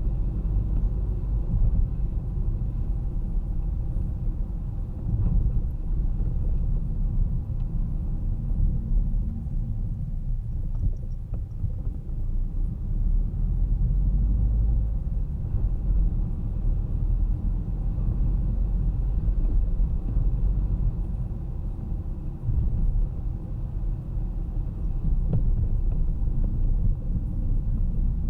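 Car driving on city streets: a steady low rumble of engine and tyre-on-road noise that swells and eases slightly.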